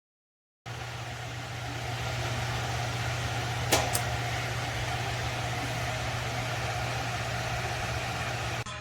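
Electric wall-mount fan running: a steady motor hum with the rush of air. The sound starts abruptly under a second in, and two short sharp clicks come close together a little before halfway.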